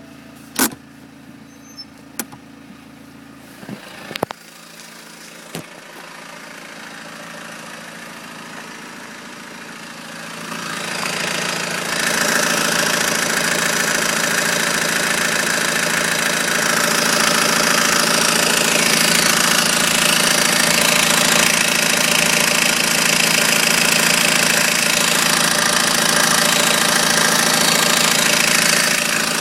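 BMW 120d four-cylinder diesel engine idling steadily with an abnormal noise from low down between engine and gearbox, which the owner suspects comes from the flywheel. A few sharp knocks come in the first seconds. From about ten seconds in it gets much louder and stays loud and even.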